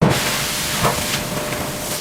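A loud, steady hiss, with a faint steady tone under it and a single dull knock just under a second in.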